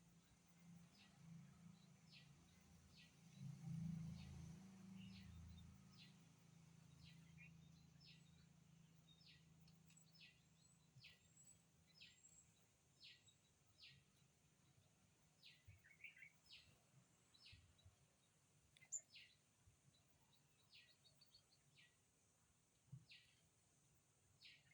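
Faint bird chirps: one short, high call repeated about once a second, with a low rumble from about three seconds in to about six.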